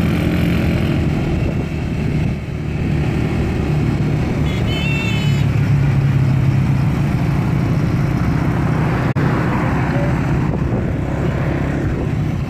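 Small motorcycles' engines running at a steady road speed, heard from a moving motorcycle, with a brief high wavering tone about five seconds in.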